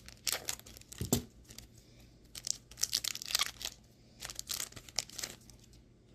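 Foil Pokémon card booster pack wrappers crinkling in several short bursts as the packs are cut open and emptied, with a soft thump about a second in.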